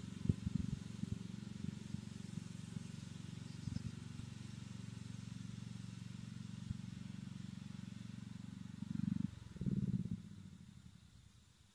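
Murray 12.5 hp lawn tractor engine idling with a steady low hum. It grows louder briefly near the end, then dies away.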